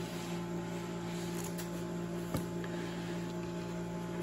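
Steady electrical hum, with a few faint clicks and one sharper tap about two and a half seconds in as hands handle the plastic bag and foam packaging tray.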